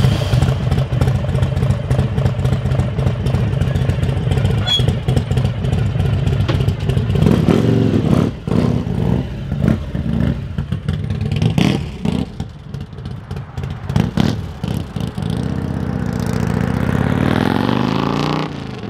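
1999 Harley-Davidson Electra Glide's carbureted, modified V-twin engine idling steadily, then pulling away and accelerating off down the street, its pitch rising near the end.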